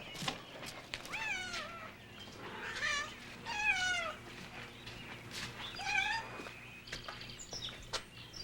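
A kitten meowing four times, each call sliding down in pitch, with a few faint knocks between the calls.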